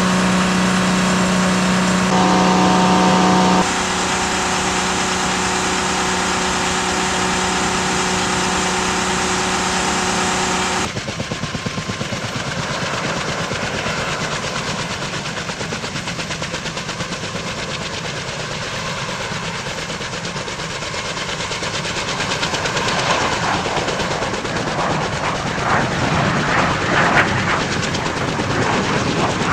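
Kaman K-MAX helicopter with its intermeshing rotors turning: first a steady turbine whine at close range, then, about ten seconds in, the rapid beating of the rotors as it hovers, growing louder near the end.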